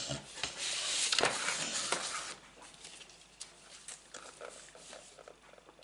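Paper and card rustling as sheets of craft paper are slid out of a kraft envelope inside a cardboard box. The crackling rustle lasts about two seconds, then gives way to faint light handling noises.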